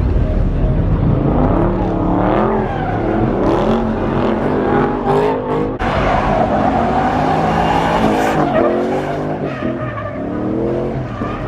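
A car's engine revving up and down again and again, with tires squealing and skidding on the pavement, as in a burnout or donuts.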